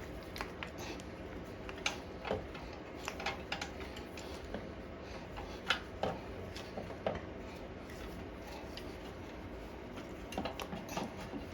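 Irregular light metallic clicks and taps as the throttle linkage is worked off a lawn mower carburetor by hand, with a small cluster of clicks near the end.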